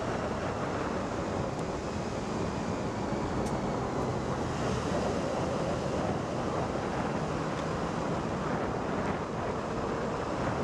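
Steady wind rush over the microphone, with tyre and road noise, from a BMW 4 Series convertible cruising with its roof down.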